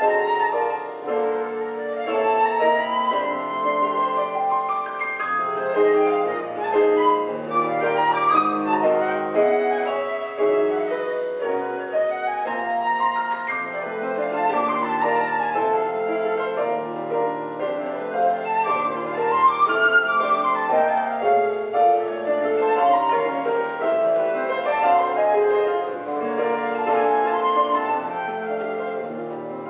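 Flute playing a flowing, quick-moving melody over piano accompaniment.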